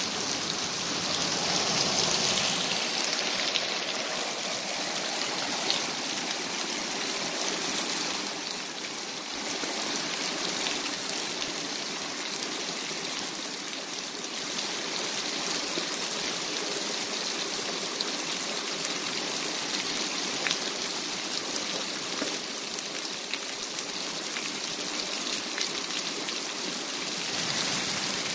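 Heavy rain falling steadily on wet pavement and puddles, a continuous hiss with a sharper tick of a single drop now and then.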